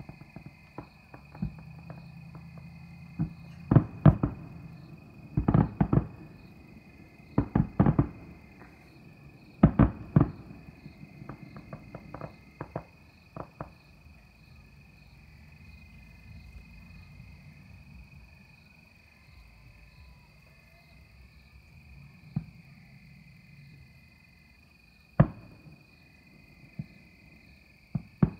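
Distant aerial fireworks shells bursting across the water: booms come in quick pairs and clusters for the first half, then single bursts now and then. Crickets chirp steadily throughout.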